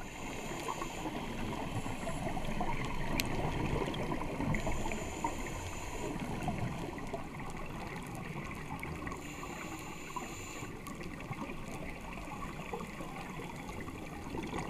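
Underwater reef noise picked up through a GoPro Hero 3's waterproof housing: a steady crackling hiss with a few sharp clicks.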